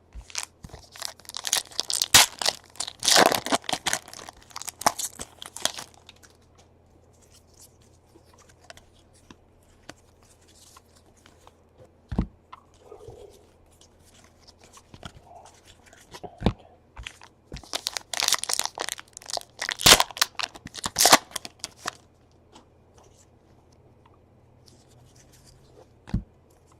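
Baseball card pack wrappers being torn open and crinkled, in two stretches of rustling and tearing, with a few sharp taps in the quieter gaps between.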